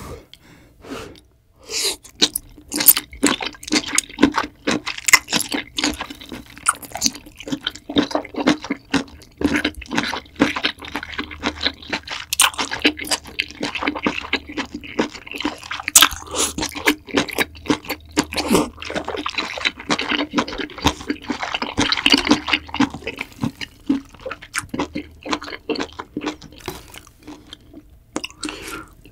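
Close-miked eating of spicy seafood ramyeon: noodles and broth slurped with wet sucking noises, and chewing with many quick small wet clicks and smacks.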